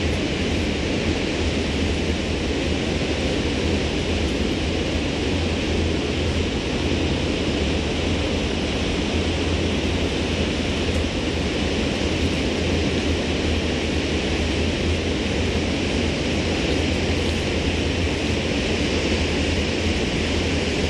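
Steady low drone of a Sea Ray Sundancer's Mercruiser 7.4 inboard engine running at slow cruising speed, under a constant hiss of wind and water.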